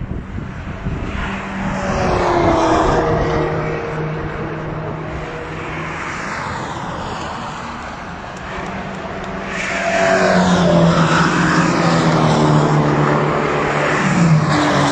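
Track cars passing at speed on a racing circuit's straight. The engine note rises and then drops in pitch as the first goes by about two seconds in. A louder run of engine sound follows from about ten seconds in, its pitch falling as it passes near the end.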